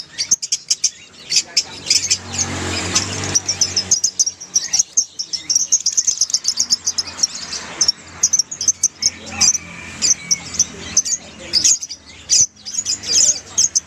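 A flock of Fischer's lovebirds chattering together in an aviary, a dense run of rapid, high, shrill chirps that goes on without a break. A low background rumble rises and fades about two to three seconds in.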